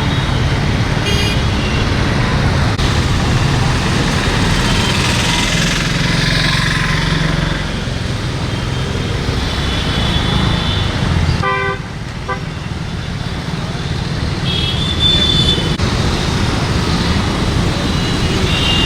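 Road traffic running steadily, with vehicle horns tooting briefly several times.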